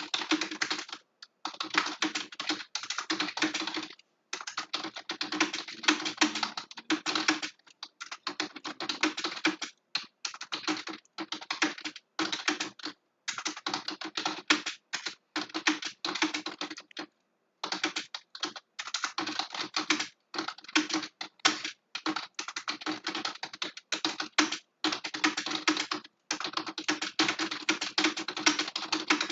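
Computer keyboard being typed on fast and continuously, a dense clatter of keystrokes broken by short pauses every few seconds.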